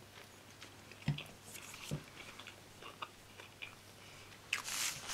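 Faint handling of a sheet of planner stickers over the planner page: a few soft taps and small crinkles, then a brief papery rustle near the end.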